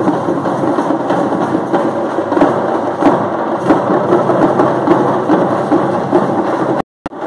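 Parai frame drums beaten fast with sticks in a dense, loud rhythm. The sound cuts out for a moment near the end.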